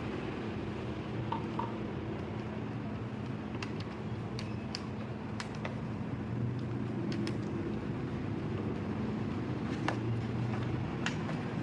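Paper being torn into small pieces and pressed down for a collage, heard as scattered soft clicks and crinkles over a steady low background hum.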